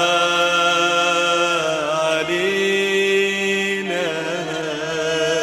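Male singer holding one long drawn-out vowel of an Arabic pop song over music accompaniment. The note steps up about two seconds in and bends back down near four seconds.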